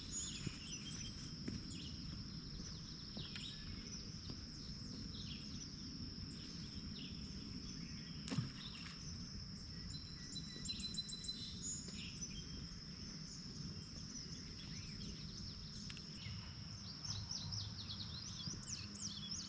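Outdoor dawn ambience: several birds chirping and calling over a steady high-pitched insect trill and a low rumble of background noise. A single sharp knock about eight seconds in, with a quick run of bird notes near the end.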